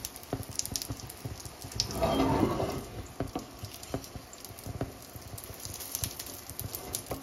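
Wooden spatula scraping and tapping against a non-stick frying pan as it loosens the edge of an omelette, with light sizzling from the egg cooking underneath. A louder rustling scrape comes about two seconds in.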